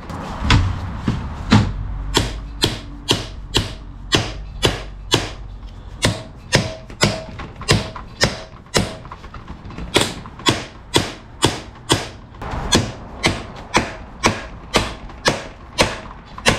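Hand ratchet wrench clicking in a steady rhythm, about two strokes a second, as bolts are backed out of a transmission case.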